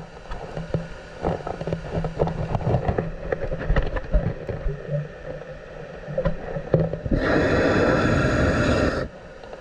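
Underwater sound on a scuba diver's camera: scattered sharp clicks and crackles over a faint low hum, then about seven seconds in a loud steady rush of a diver's breath through a scuba regulator, lasting about two seconds.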